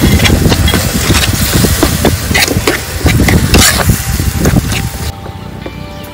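Food sizzling in a metal wok while a metal ladle scrapes and clinks against the pan during stir-frying. About five seconds in this cuts off abruptly and quieter background music takes over.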